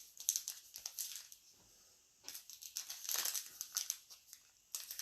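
Plastic trading card pack wrappers crinkling as packs are torn open and handled, in two spells of rustling with a short pause between them.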